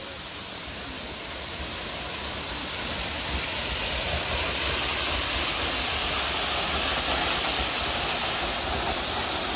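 Waterfall rushing as a steady roar of falling water, growing gradually louder.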